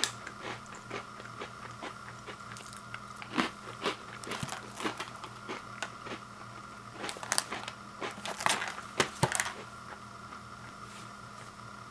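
Crunchy Sobisk Golden Oats breakfast biscuit crunching, a run of sharp crisp crunches in bunches that stop about three-quarters of the way through. A steady faint hum runs underneath.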